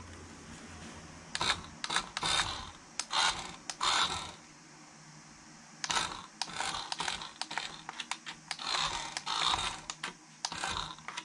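Toy-grade radio-controlled car's small electric motor and plastic gearbox whirring in short on-off bursts as the car drives on a tatami mat. The stop-start comes from the remote, which only switches the throttle and steering fully on or off. There are a few bursts, a short pause, then a quicker run of bursts near the end.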